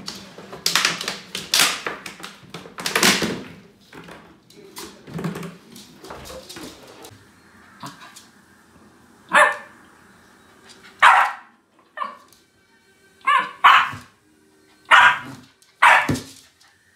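West Highland White Terrier barking: a run of about seven sharp barks, roughly a second apart, in the second half. Before that comes a stretch of noisy crinkling and knocking from a plastic water bottle being pushed about by the dog.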